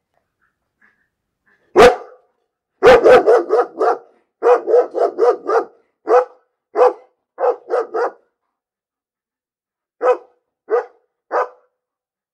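A dog barking. It gives one bark about two seconds in, then two quick volleys of several barks each, then slower, spaced single barks towards the end.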